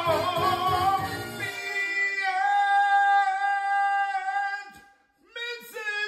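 A song: a singing voice with instrumental backing. About a second and a half in, the backing drops out and the voice holds one long high note. After a short break near the end come a few brief sung phrases.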